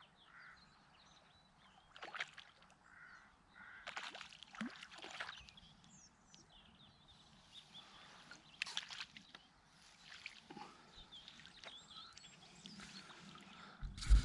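A few splashes and sloshes of river water as a fish is released back in, over birds calling.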